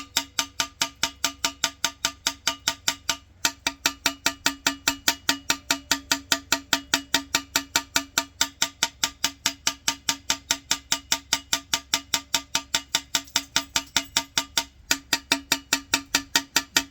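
Rapid, even light taps on a scored ceramic floor tile, about four or five a second with two short pauses, each tap ringing with a steady tone. The tile is being tapped gently along its score lines to crack out an outlet cut-out; a change in that ringing tone marks the crack going through.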